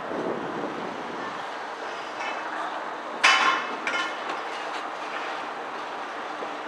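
Steady outdoor background noise, broken about three seconds in by a sudden sharp clang with a ringing tail, and a weaker second clang just after.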